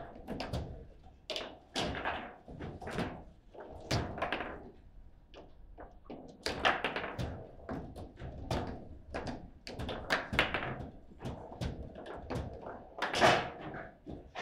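Table football in play: an irregular run of sharp knocks and clacks as the ball strikes the plastic players and the table walls and the rods are worked. The loudest knock comes near the end.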